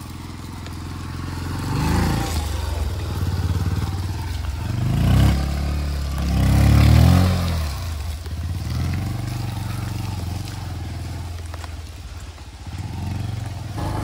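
Motorcycle engine revving in bursts under load on a slippery off-road trail, its pitch rising and falling with the throttle, loudest about five and seven seconds in.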